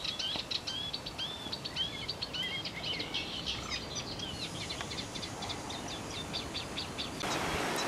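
Small birds singing: a rapid, continuing series of short chirps and whistles over a steady outdoor hiss, which grows louder about seven seconds in.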